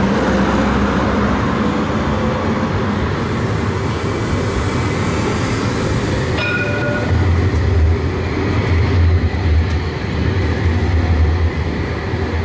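CAF Urbos 3 tram running along street track, a steady rumble of wheels and motors that grows heavier from about seven seconds in as it passes close. A brief high tone sounds about six seconds in.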